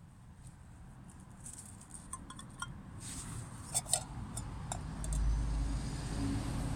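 Light metal clinks and taps as a pan is settled onto tent pegs, with road traffic rumbling behind, growing louder over the last couple of seconds as a vehicle goes by.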